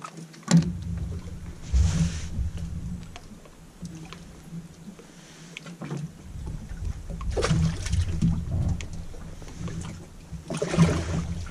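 Water splashing and sloshing at the edge of a wooden dock in several uneven bursts, with a few knocks from hands working over the edge.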